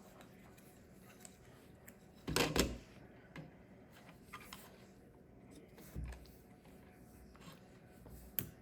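Small plastic Lego pieces being handled and fitted, with light scattered clicks and rustles and a louder rustling clatter about two and a half seconds in.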